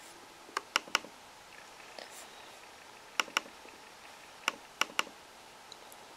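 Computer clicking while opening folders on a laptop: sharp clicks in three quick groups, three clicks, then two, then three.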